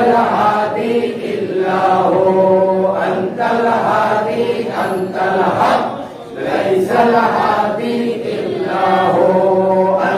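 Devotional chanting by men's voices, sung in long held phrases, with a short break about six seconds in.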